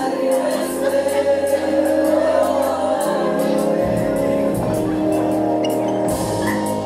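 A song from the stage show: singing over a musical accompaniment, with long held notes.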